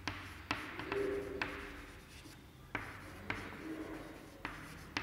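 Chalk writing on a blackboard: about eight sharp taps as the chalk strikes the board, with scratchy strokes between them.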